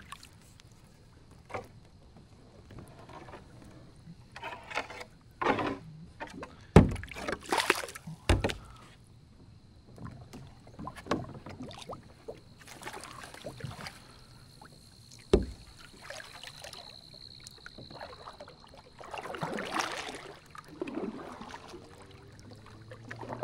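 Double-bladed kayak paddle strokes: the blades dipping and splashing in the water at an uneven pace, with a few sharp knocks.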